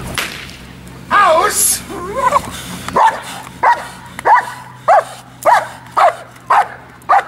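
German shepherd barking at a protection-training helper: wavering high-pitched whining cries about a second in, then a steady run of eight sharp barks, about one every 0.6 seconds.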